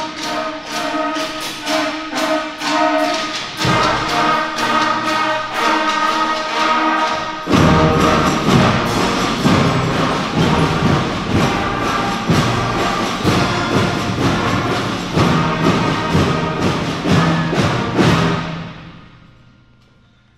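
Beginner school concert band playing: flutes, clarinets and brass over steady drum beats. The band comes in fuller and louder about a third of the way in, then the music fades out near the end.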